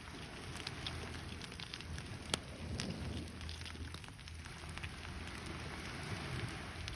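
Wood fire crackling in a campfire stand: a steady hiss with scattered small pops and one sharper pop about two and a half seconds in.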